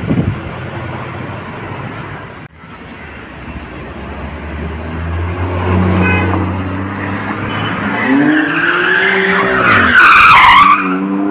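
Sports cars driving past close by one after another, engines running and revving. About eight seconds in one engine revs up in a rising pitch, building to the loudest moment about ten seconds in, as a BMW M2 passes.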